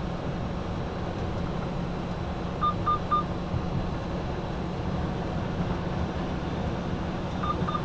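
Steady cab rumble of a Freightliner Cascadia truck at highway speed, with the hands-off-wheel warning chime sounding a quick group of three short beeps about three seconds in and again near the end. The groups come about five seconds apart: the lane-assist system warning that the driver's hands are off the wheel.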